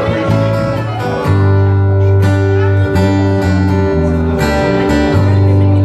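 Live acoustic guitar strumming chords over an electric bass line, played by a small band.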